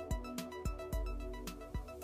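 Background music with a steady beat and sustained melodic notes.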